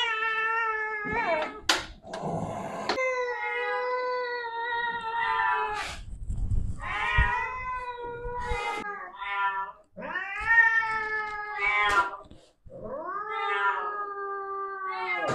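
Angry cat yowling: a string of about seven long, drawn-out yowls with short gaps between them.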